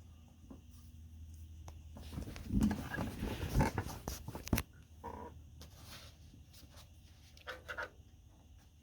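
Handling noise as the top dust filter is taken off a PC case: irregular scraping and rubbing with a few sharp clicks, busiest between about two and four and a half seconds in, over a low steady hum.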